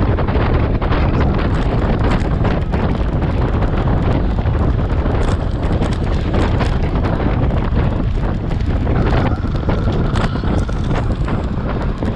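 Wind rushing over the microphone of a road bike's handlebar camera at about 26 mph: a loud, steady rush with scattered small clicks and knocks.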